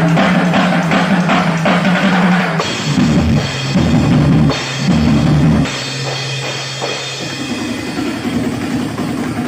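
Drum kit solo: fast, even strokes on the drums, then heavy bass-drum hits under crashing cymbals, settling to quieter playing about six seconds in.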